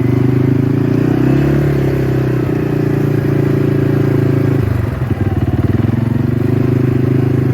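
A vehicle engine running steadily at low revs, with a short dip and a change in its note a little under five seconds in.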